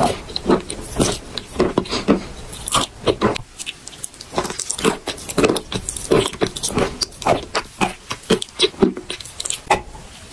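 Close-miked chewing of block chalk: dense, irregular crunching and gritty crackles as the teeth grind it down into a wet paste, with a fresh bite into the block near the end.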